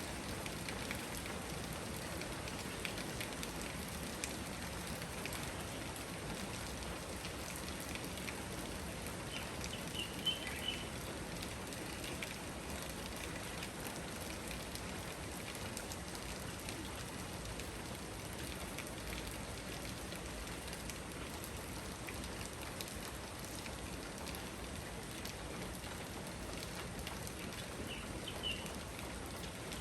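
Steady rain shower, a dense even patter of raindrops on surfaces, with a couple of brief high chirps about ten seconds in and again near the end.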